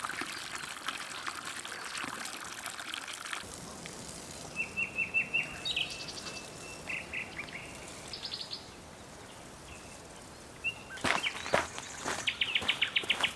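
Water gushing from the end of a long garden hose fed by a small solar-powered well pump; it cuts off abruptly after about three seconds. Then birds chirping in short repeated notes, a few knocks about eleven seconds in, and a quick rapid trill near the end.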